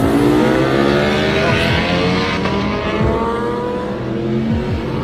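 Racing motorcycle engines accelerating hard, their pitch climbing steadily as they pull away through the gears.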